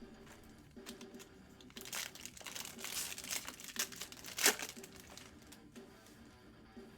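Foil wrapper of a Bowman Jumbo baseball card pack crinkling as it is handled and torn open, with one sharp, loud crackle about four and a half seconds in.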